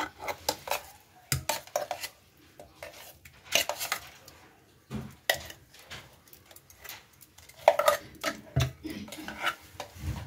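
A spoon scraping thick ground-rice batter out of a steel mixer-grinder jar into a glass bowl, with irregular clinks and scrapes against the jar.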